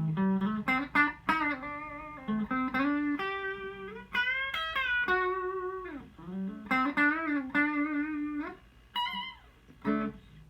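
Electric guitar on a clean tone playing a single-note melody, with string bends and vibrato on held notes; the playing stops near the end.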